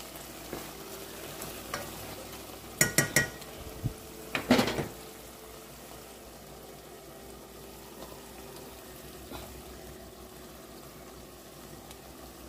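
Onions and seasoning cooking in a pot with a low steady sizzle as they are stirred. About three seconds in there is a quick run of ringing metal clinks against the pot, and a louder clatter comes about a second and a half later.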